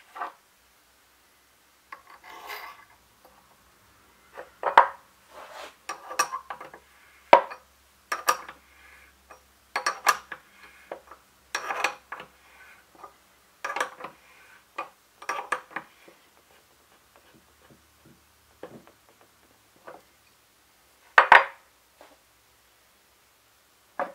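Steel tooling being handled: a short scrape, then a run of irregular metallic clicks and clinks as an end mill is slid into an ER collet and the collet nut is threaded on and tightened with a hook spanner wrench on a chuck held in a tightening fixture. One louder metal knock comes near the end.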